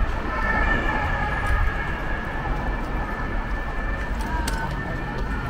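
City street ambience: a steady low rumble with several high, slightly wavering tones over it, and a sharp click about four and a half seconds in.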